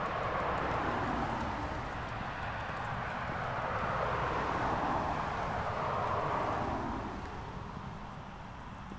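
Rushing noise of a passing vehicle that swells and then fades away about seven seconds in, with faint footsteps ticking underneath.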